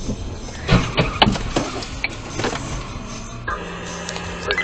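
Car road and engine noise heard from inside the vehicle, with a quick run of sharp knocks and clatters about a second in. A steady low hum comes in near the end.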